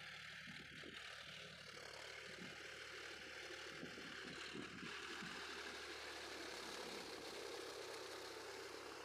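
John Deere 5042D tractor's three-cylinder diesel engine running steadily under load while it churns through a flooded paddy field, with muddy water sloshing around the wheels and cultivator.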